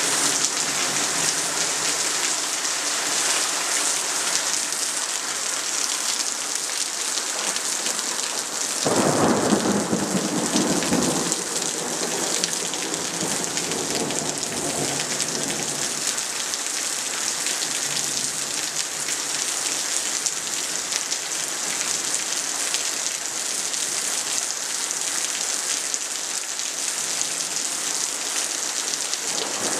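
Thunderstorm: steady heavy rain hissing throughout, with a sudden thunderclap about nine seconds in that rumbles for a couple of seconds and dies away over several more. A second clap begins right at the end.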